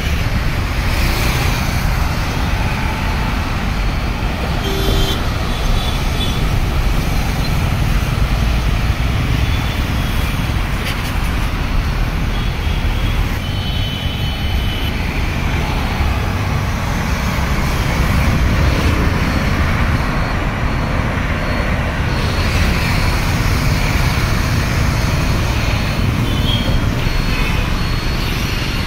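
Steady road traffic on a wet road: engines and tyres of passing motorcycles, cars and auto-rickshaws, with short vehicle horn toots about five and fourteen seconds in.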